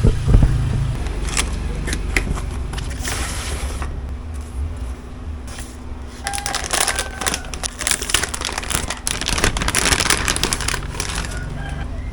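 Clicks, crackling and rustling of PC parts and packaging being handled during assembly, over a steady low rumble. The handling noise is thickest in the second half.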